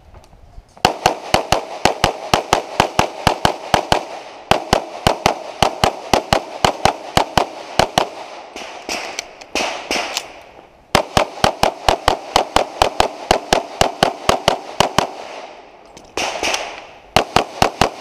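Rapid pistol fire from an STI open-division race gun in .38 Super with a compensator. The shots come in fast strings of about four to five a second, broken by short pauses about 4, 8, 11 and 16 seconds in.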